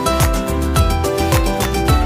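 Background music with a steady beat: plucked notes over a kick drum about twice a second.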